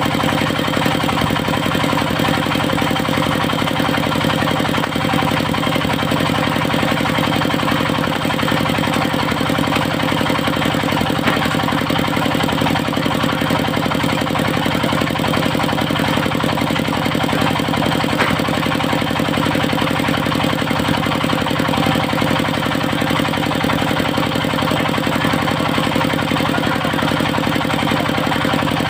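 Engine of a mobile circular-blade sawmill running steadily at constant speed, with a steady high whine above it.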